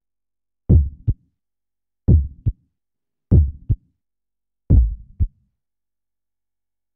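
Logo-intro sound effect of a deep, heartbeat-like pulse: four lub-dub double thumps about one and a third seconds apart, each a strong low thump followed by a lighter one.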